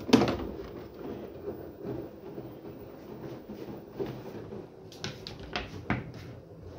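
Plastic clacks and knocks from a tumble dryer's lint filter being pulled out of the door and handled. There is one sharp clack right at the start, the loudest sound, then a few lighter knocks and clicks in the second half.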